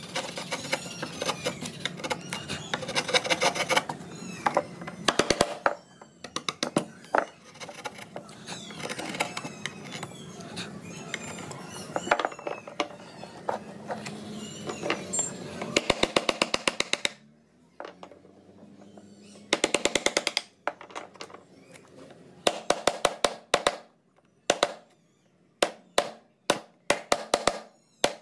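A steel carving chisel being tapped into a wooden relief panel in quick runs of sharp taps, with short pauses between runs.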